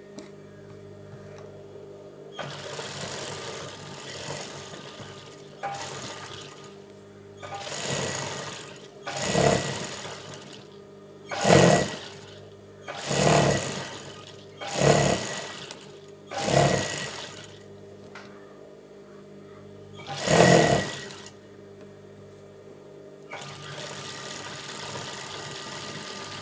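Industrial sewing machine stitching fabric in about ten short runs, each lasting from half a second to a few seconds, with pauses while the fabric is repositioned. A steady hum continues underneath.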